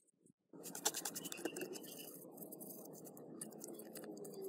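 Screwdriver scraping and prying at a corroded radio circuit board, with many small clicks and scratches. It starts suddenly about half a second in, over a steady background hiss.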